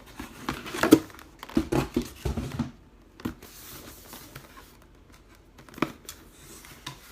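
Paper packaging crinkling and rustling as items are unpacked by hand, with a few sharp knocks. It is busiest in the first three seconds, then turns to quieter, sparser handling.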